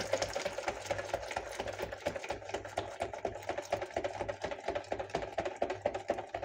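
Whisk with silicone-coated wires beating a thin, creamy homemade fabric-softener mixture in a plastic measuring jug: fast, even clicking and sloshing strokes against the jug. Liquid is poured in at the same time.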